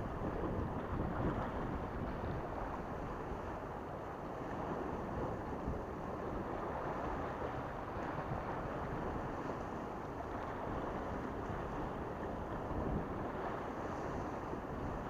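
Steady wind on the microphone, with small waves washing against breakwater rocks.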